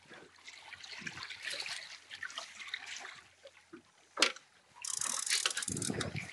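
Water splashing and trickling against a small boat, with one sharp knock about four seconds in and a loud hissing rush in the last second or so.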